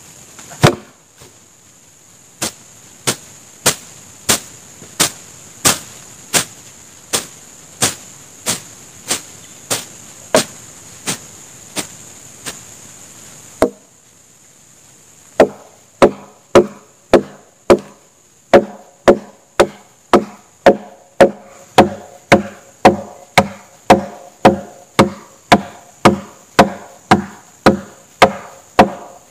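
Wood being chopped in a steady rhythm. Lighter strokes come about every two-thirds of a second, then after a short pause come heavier, faster strokes with a dull ring, about two a second. A steady high hiss runs underneath.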